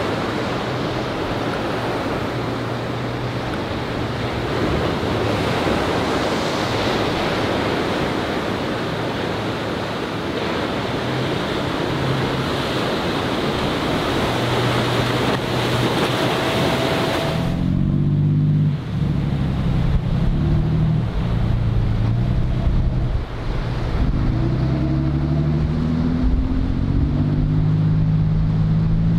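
Surf and wind noise over a motorboat's engine. About two-thirds of the way through, the sound cuts abruptly to a louder fishing boat engine among the breaking waves, its pitch rising and falling several times.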